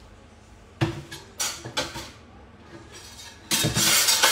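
Kitchen utensils and cookware clinking and clattering: a sharp click about a second in, then a few more knocks. A loud hiss starts about three and a half seconds in and carries on.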